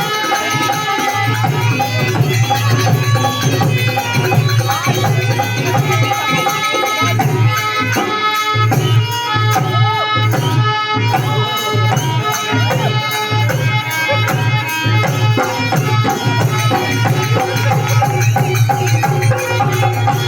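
Traditional Indian folk music with a steady hand-drum beat under a sustained melody, playing throughout.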